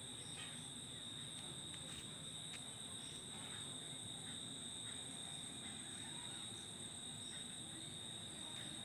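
Crickets trilling in one steady, unbroken high-pitched note, over a low rumble.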